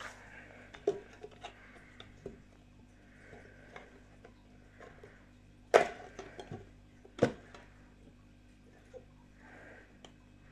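Small metal trading-card tin handled and pried at by fingers as its tight lid is worked loose: scattered light clicks and taps of nails and lid on the thin tin, with two sharper knocks about six and seven seconds in.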